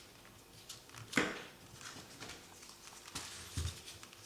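Folded paper units of a 3D origami model rustling and crackling as they are handled and pushed into place, with a sharp crackle about a second in and a short low thump near the end.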